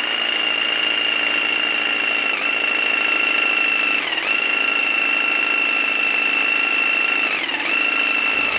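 Starrett jigsaw with an aggressive blade cutting slowly through hard maçaranduba wood: a loud, steady high motor whine that dips briefly in pitch three times under load.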